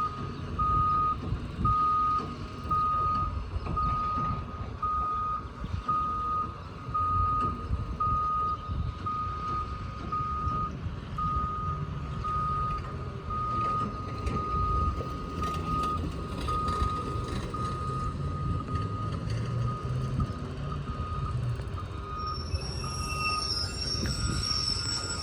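Backup alarm on heavy work equipment beeping steadily over the low rumble of a diesel engine. Near the end a second, higher-pitched beeper and a high steady squeal join in.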